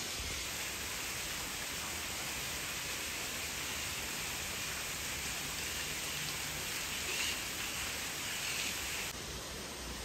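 Steady outdoor ambient noise, an even hiss with no distinct events, which drops slightly in level just before the end.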